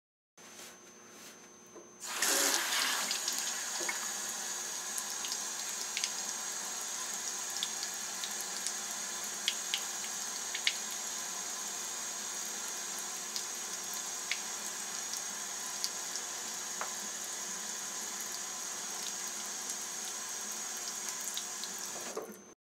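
Water running from a faucet into a bathroom sink, starting suddenly about two seconds in and running steadily with small splashes, then cutting off suddenly near the end.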